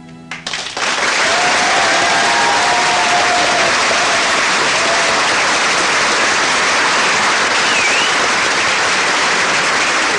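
Audience applause breaking out as the last note of a song dies away: a few claps, then full, steady applause within about a second.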